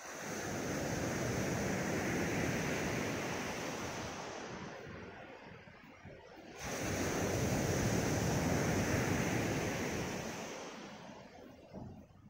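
Sea waves breaking on a gravel beach, twice: each wave comes in suddenly and its wash fades away over several seconds, the second arriving about six and a half seconds after the first.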